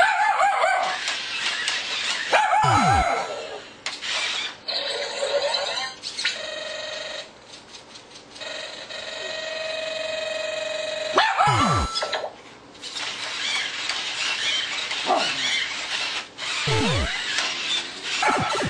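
Puppy barking at a four-legged toy robot, mixed with electronic robot sounds: several quick falling pitch sweeps and a held beeping tone in the middle.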